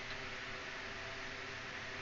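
Steady background hiss with a faint low hum and no distinct sound events: room tone.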